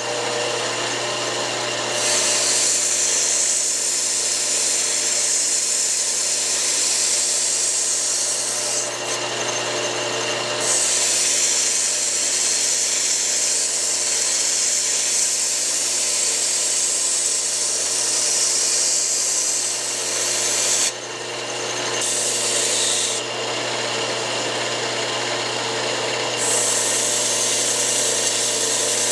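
Drill press starting up and spinning a small steel wire cup brush, with a steel tinplate toy-train car part pressed against it to scrub off leftover rust: a steady motor hum under a loud, harsh hiss of steel bristles on metal. The hiss drops out briefly a few times, at about 9, 21 and 26 seconds, when the part comes off the brush.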